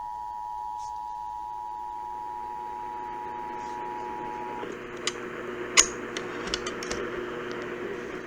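Radio receiver output between Emergency Alert System test messages: a steady two-note tone a little below a kilohertz that cuts off about four and a half seconds in, over hiss. After that there is steady hiss and a lower hum, with a few sharp clicks between five and seven seconds in.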